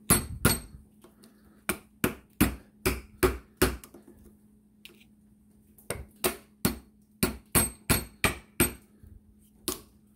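Hammer tapping metal on metal at a bearing stuck on a 1973 Moto Guzzi Eldorado handlebar spindle clamped in a bench vise, about seventeen sharp strikes in three runs. The bearing will not come off.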